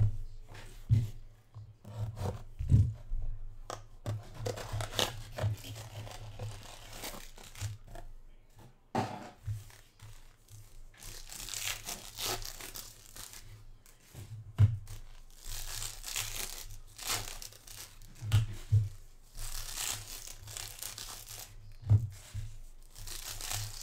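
Foil trading-card packs being torn open by hand, several rips in a row with the wrappers crinkling, and a few soft knocks as packs and cards are handled on the table.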